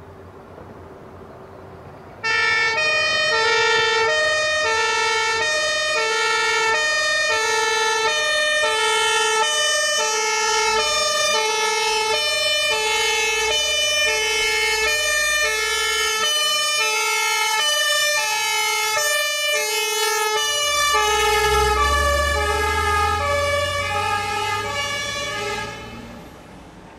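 German fire engine's two-tone emergency horn (Martinhorn) sounding its alternating high-low call, switched on suddenly about two seconds in and cut off shortly before the end. The truck's engine rumbles underneath in the last few seconds.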